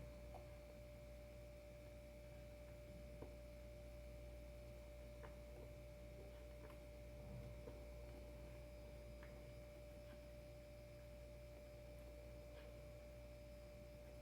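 Near silence: room tone with a steady faint tone and low hum, and a few faint small clicks spread through it.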